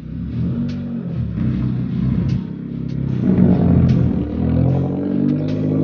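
Ford Fiesta Mk7's engine breathing through an HKS aftermarket muffler, revving as the car pulls away. The revs climb about two seconds in and are loudest around four seconds in, then level off.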